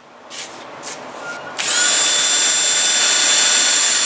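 A cordless drill starts up about one and a half seconds in and runs at a steady speed with a high whine, boring the hole for the fore-end sling swivel stud in the rifle's wooden stock. Before it starts there are a few light handling clicks.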